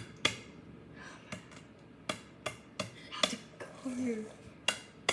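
An egg being tapped again and again against the rim of a mixing bowl: about eight light, sharp knocks at uneven intervals, too gentle to crack the shell.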